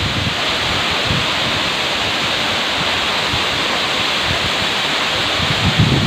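Waterfall crashing down close by: a loud, steady rush of falling water and spray. Low gusts of wind buffet the microphone, more strongly near the end.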